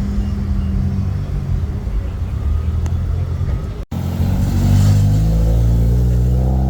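A car engine running at a low, steady note. About four seconds in, after a brief break, an engine note climbs in pitch as it revs up, then holds at the higher speed.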